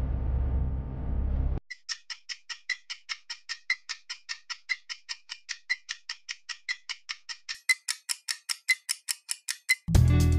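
Quiz countdown-timer sound effect: a steady clock-like ticking, about four ticks a second, growing brighter near the end, while the timer bar fills. It starts after a low steady rumble cuts off about one and a half seconds in, and gives way to upbeat guitar music just before the end.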